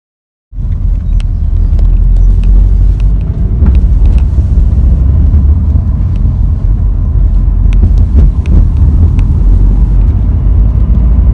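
Car driving, heard from inside the cabin: a loud, steady low rumble of road and engine noise with a few faint clicks, starting about half a second in.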